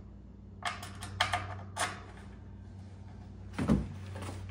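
Short metallic clicks and scrapes as an AN3 bolt is pushed into and wiggled in freshly upsized holes in the aluminium aft bulkhead and stabilizer spar, several in the first two seconds, then a duller bump near the end. A steady low hum runs underneath.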